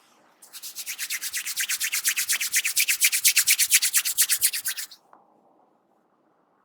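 Hands rapidly rubbing hair during a head massage: a dry, rasping stroke about ten times a second that builds in loudness, then stops abruptly.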